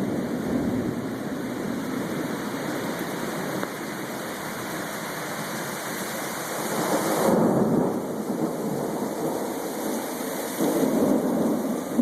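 Thunderstorm: rain falling steadily while thunder rumbles, swelling louder about two-thirds of the way through and again near the end.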